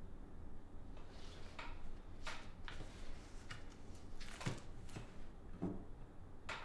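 Quiet room tone with a steady low hum, broken by about eight soft clicks and rustles of small objects being handled at a desk.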